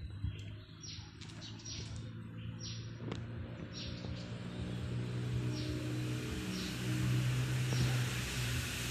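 Small birds chirping, short high calls repeated every half second or so, thinning out after the first few seconds. Beneath them runs a steady low hum that grows louder, with a rising hiss, near the end.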